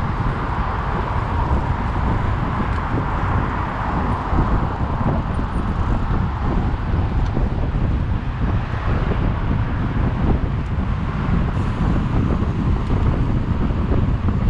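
Wind buffeting the microphone of a camera on a moving bicycle, a low fluttering rumble over steady city road traffic.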